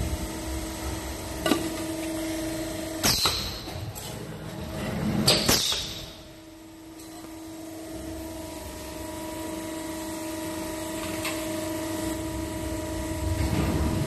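Electric kettle trimming and crimping machine running with a steady hum, with sharp metal clanks and a scraping rasp as the stainless steel kettle body is worked on its fixture. The loudest clanks come about three and five seconds in, and the hum briefly drops out around the middle.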